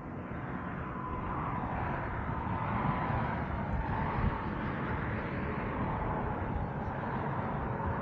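Steady outdoor rumble with a faint whine that slowly falls in pitch, swelling a little over the first few seconds.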